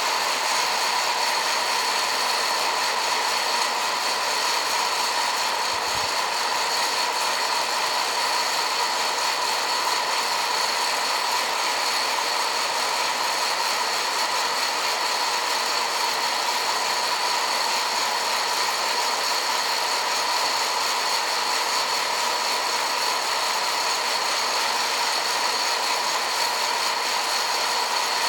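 Hot-air coffee roaster running steadily, its fan blowing air through the tumbling beans with a steady rushing whine. The beans are roasting dark, nearing second crack.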